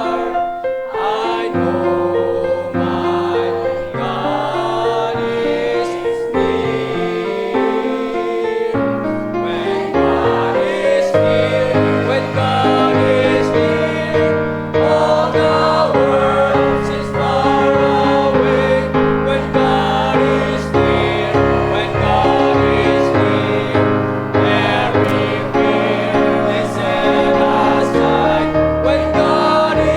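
Church choir singing a gospel hymn over instrumental accompaniment, in sustained chords; the bass fills out and it grows a little louder about ten seconds in.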